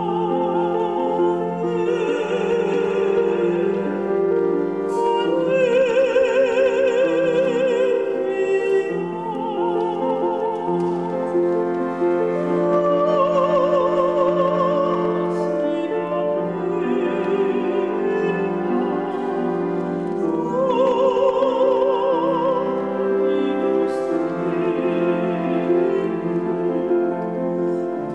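Classical soprano singing with wide vibrato, accompanied by piano and a small organ holding sustained notes.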